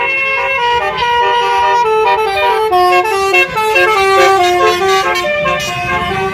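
Indonesian 'telolet' multi-tone bus horn playing a quick melody, its notes stepping up and down several times a second.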